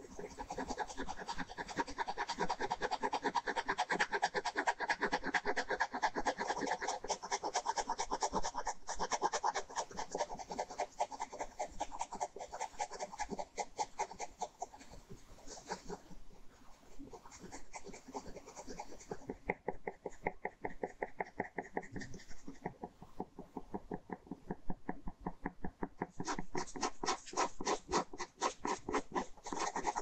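Ballpoint pen scratching across paper in rapid hatching strokes, many a second. The strokes go quieter for a stretch past the middle and pick up again near the end.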